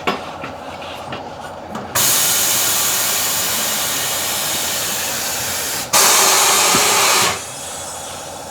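Compressed air hissing in two bursts: a long one of about four seconds, then a louder one lasting just over a second.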